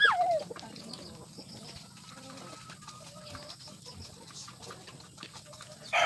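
Chickens in a yard: one loud call falling in pitch right at the start, then faint, scattered clucks.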